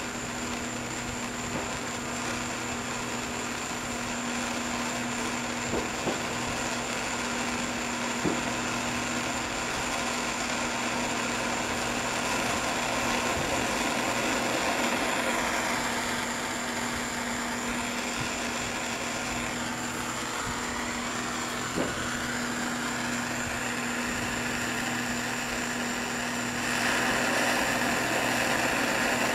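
Steady machine-like rushing noise with a constant low hum, shifting in tone midway and getting louder near the end, with a few light metallic clicks.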